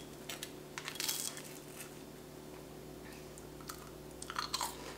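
Faint eating sounds: a fork clinking and scraping on a plate, then a bite of mash with a crunchy toasted-marshmallow topping near the end. It comes as scattered small clicks and crackles.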